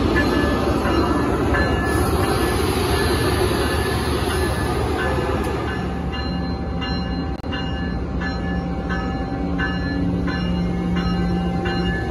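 Amtrak Siemens ACS-64 electric locomotive up close: a dense, steady rumble. About halfway through, a steady hum and a regular clicking about twice a second join it.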